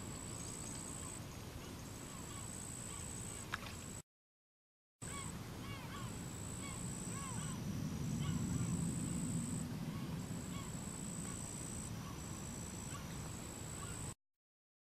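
Riverbank ambience: insects trilling in high, steady stretches, many short chirping animal calls, and a low rumble that swells midway. There is one sharp click a few seconds in, and the sound drops out briefly twice.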